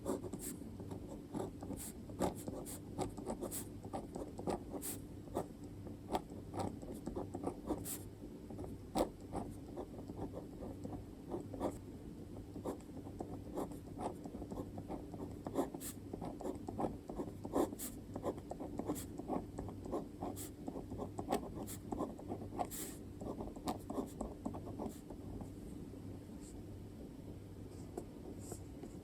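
Pen writing by hand on paper: a steady run of short scratching strokes and light taps, with a faint steady hum underneath. The strokes thin out near the end.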